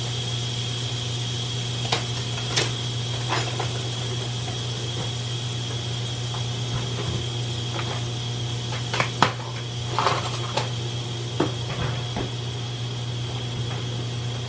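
Utensils clinking and knocking as a kitchen drawer is rummaged through: scattered short clicks, busiest around the middle, over a steady low hum.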